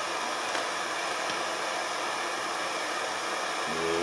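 Steady hiss of a propane blowtorch burning, with a faint click about half a second in.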